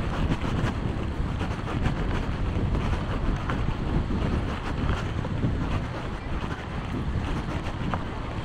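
Wind buffeting the microphone as a steady low rumble, over the wash of sea waves on the shore.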